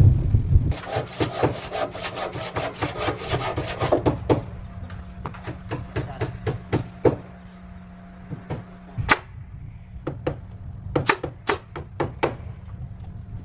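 Knocking and tapping on wood: a fast run of taps for the first few seconds, then scattered knocks, one sharp crack and a cluster of clicks near the end. A steady low hum runs underneath and stops about nine seconds in.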